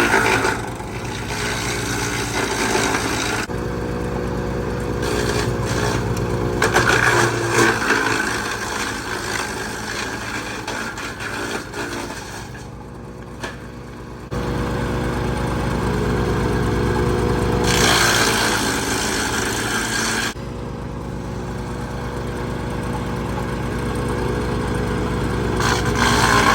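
MechMaxx 6-inch wood chipper's petrol engine running steadily under load while branches are fed through and chipped, with stretches of loud crackling chipping noise over the engine hum. The sound level changes abruptly several times.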